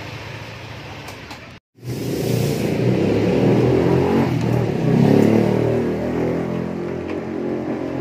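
A motor vehicle engine running loudly, cutting in suddenly about two seconds in after a brief silent gap.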